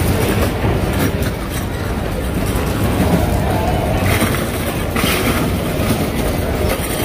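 Steady low rumble of a busy open-air food court, with indistinct voices in the background.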